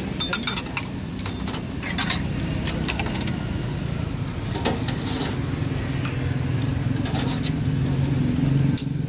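Steady low hum of motor vehicle engines from street traffic, getting a little louder near the end. Over it come scattered sharp clinks and taps of a knife, ladle and china bowls on a metal food-stall counter.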